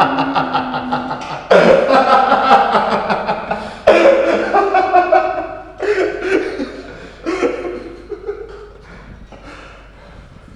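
Hearty laughter, with fresh loud bursts about a second and a half in and again about four seconds in, then dying away toward the end.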